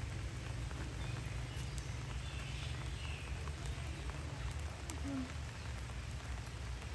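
Steady rain falling, with scattered raindrop ticks over a constant low rumble, and a brief faint animal call about five seconds in.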